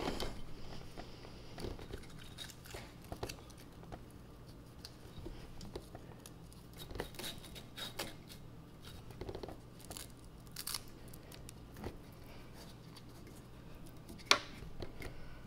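Quiet handling noises: scattered light clicks and rustles over a faint steady low hum, with one sharper click near the end.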